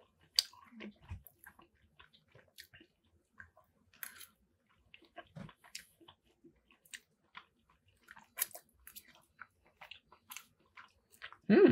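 Close-up mouth sounds of someone chewing a mouthful of chicken shawarma poutine (fries, cheese curds, gravy and chicken): soft, irregular clicks and smacks. A brief louder vocal sound comes right at the end.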